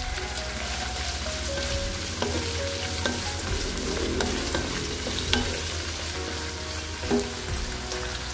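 Dried anchovies, chillies and tomatoes sizzling in hot oil in a wok while a wooden spatula stirs them, with a few knocks of the spatula against the pan.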